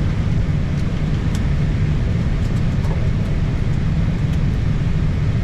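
Steady low rumble and hiss of an Airbus A320 cockpit at the stand, with a few faint ticks.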